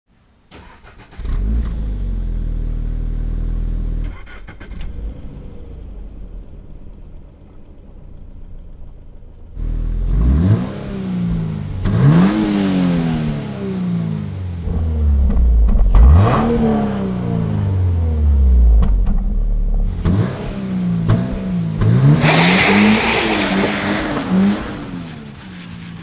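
2023 Toyota GR86's 2.4-litre flat-four exhaust: the engine catches about a second in, runs at a loud high idle, then drops to a quieter idle after a few seconds. Later it is blipped in three sharp revs, then it runs hard with rushing noise as the car accelerates away, fading near the end.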